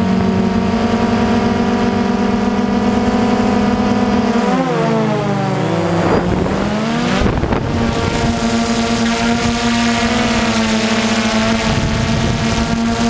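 Quadcopter drone's electric motors and propellers whining steadily, heard close from the drone's own camera, with wind noise. About four seconds in, the pitch drops as the motors throttle back, then climbs again to a steady whine about seven seconds in.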